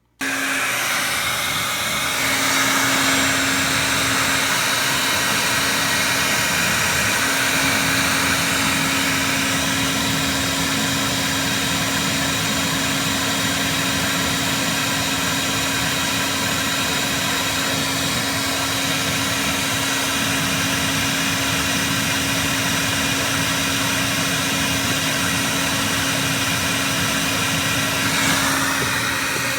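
A small electric blower motor switches on abruptly and runs steadily: a constant low hum under a loud, even rush of air.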